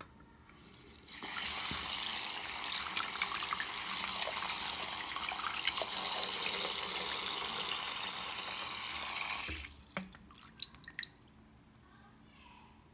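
Bathroom sink tap turned on about a second in, water running and splashing into the basin. The tap shuts off abruptly about two-thirds of the way through, leaving a few drips.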